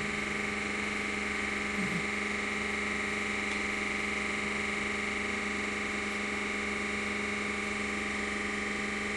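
Steady hiss with a constant hum of several fixed tones beneath it, unchanging throughout, with a brief faint blip about two seconds in.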